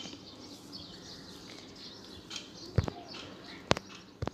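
About four sharp clicks in the second half, spaced irregularly: fingernails cracking lice picked from the hair. Faint birdsong chirps in the background.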